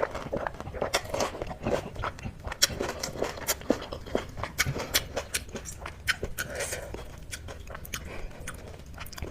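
A person chewing and crunching golgappay (pani puri, crisp hollow fried shells filled with spiced water) close to the microphone: a run of short, sharp crackles and wet chewing clicks.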